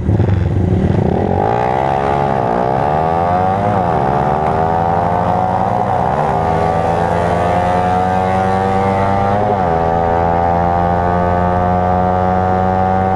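Single-cylinder motorcycle engine accelerating hard through the gears. Its pitch climbs and drops briefly at each of four upshifts, then holds high and steady near top speed.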